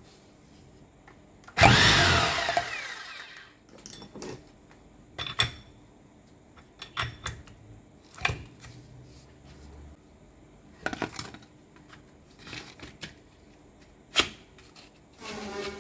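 An electric power tool runs in a short loud burst and then winds down over about two seconds, followed by scattered knocks and clicks of tools and metal parts being handled.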